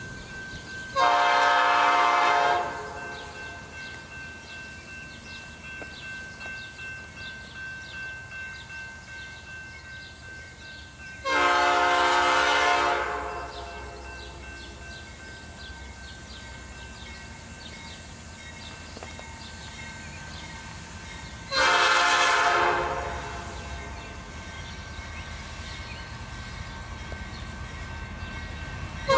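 Norfolk Southern GE Dash 9-40CW locomotive horn sounding three long chord blasts about ten seconds apart, with a fourth beginning at the very end, as the train nears a grade crossing. Between the blasts the approaching train's low rumble runs on.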